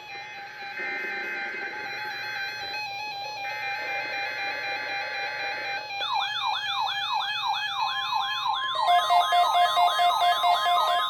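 NOAA Weather Radio SAME data header: three bursts of warbling digital tone with short pauses, opening a Required Weekly Test. About six seconds in, several weather-radio receivers decode it and sound their alert alarms: a siren-like rising warble repeating about three times a second, joined near the end by steady pulsing beeps.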